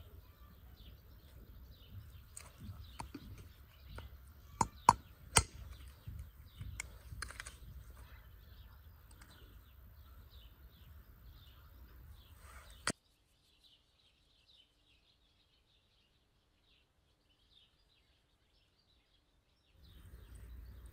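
Knife cutting raw goat meat on a wooden stump, with scattered sharp knocks and three loud ones about five seconds in, over small birds chirping. After about thirteen seconds the cutting stops, leaving only faint bird chirps.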